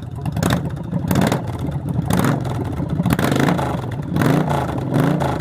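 Yamaha XV1100 Virago's air-cooled V-twin running on open header pipes with no mufflers or baffles, blipped several times so the revs rise and fall. It is loud and harsh, with a 'doit, doit, doit' pulse from the unrestricted straight headers.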